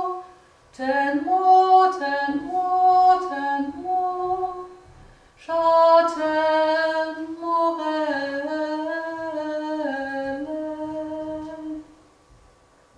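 A woman singing unaccompanied in long, held notes, in two phrases with a short pause between them; the singing stops shortly before the end.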